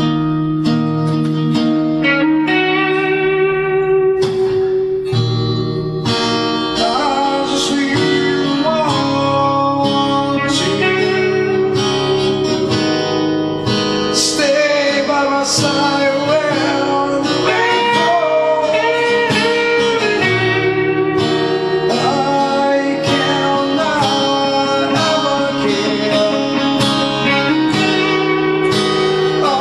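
Acoustic guitar music: chords ringing underneath a melody line of long notes that waver and slide between pitches.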